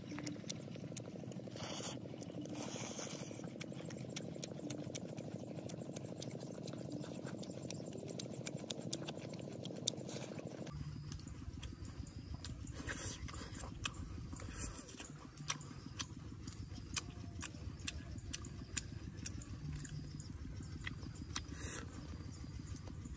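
A person chewing and lip-smacking while eating roasted fish with chili: a run of many small, sharp mouth clicks over steady background noise, the background changing about ten seconds in.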